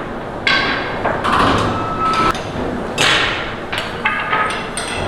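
Metal kitchenware clanking: a quick, irregular series of sharp metallic knocks, each leaving a brief ringing tone, about seven or eight in all.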